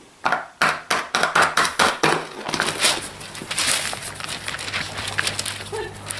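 Papier-mâché shell crackling and crunching, a quick run of sharp cracks several a second, while the balloon inside it is popped with a needle. After about two and a half seconds this gives way to quieter rustling over a steady low hum.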